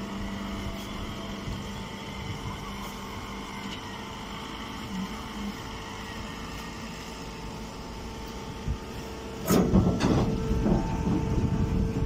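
Steady hum of running machinery with a few steady tones. About three quarters of the way through, a louder rustling and crackling noise starts suddenly and keeps going.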